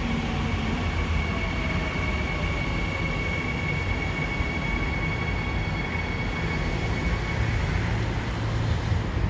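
Seoul Subway Line 2 electric train at the station: a steady rumble with a thin, high electrical whine held throughout, and a faint falling tone in the first couple of seconds.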